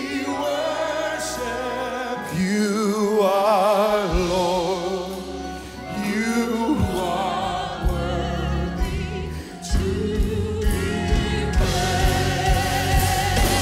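Slow gospel worship song: singers hold long notes with vibrato over instrumental backing with sustained bass notes, and a steady beat comes in about ten seconds in.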